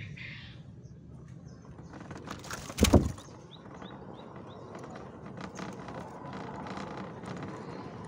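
A single loud knock a little under three seconds in, followed by a few short, high bird chirps and scattered light clicks.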